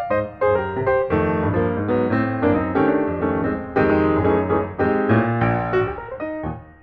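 Background piano music: a melody over chords, with notes in quick succession.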